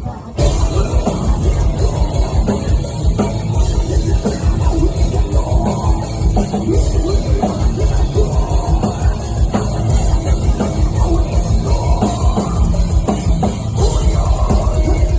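Heavy metal band playing live at concert volume, driven by a fast, steady kick drum. The music drops out for an instant near the start, then comes straight back in.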